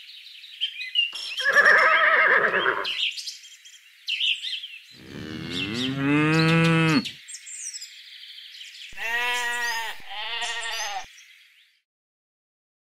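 Farm animal calls: a cow mooing in one long call about five seconds in, and two short sheep bleats near the end, with another animal call about a second and a half in.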